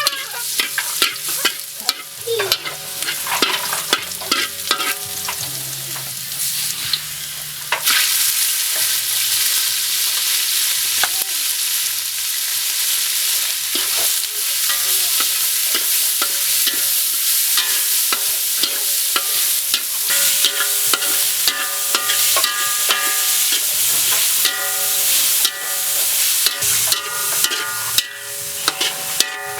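Food frying in a pan while being stirred, with a utensil clicking and scraping against the pan. About eight seconds in, a loud sizzle starts and keeps going, as if something has just gone into hot oil.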